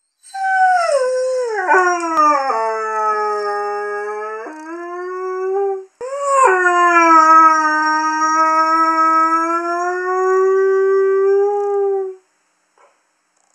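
Young male Curly Coated Retriever howling: two long howls with a brief break between them, the first sliding down in pitch, the second rising quickly and then held nearly level.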